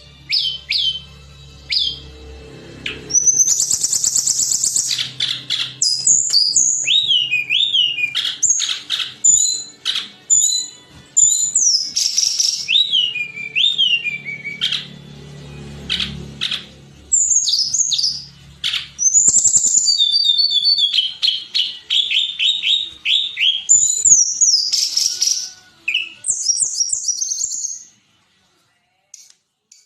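Tledekan gunung singing a loud, varied song of sharp whistles, slurred up-and-down notes and fast trilled series, in bursts with short pauses. It stops about two seconds before the end.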